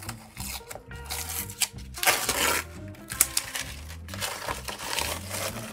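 Blue masking tape being peeled off a concrete block and crumpled in the hand, in rustling, tearing bursts about two seconds in and again around four seconds. Background music with a steady low beat plays underneath.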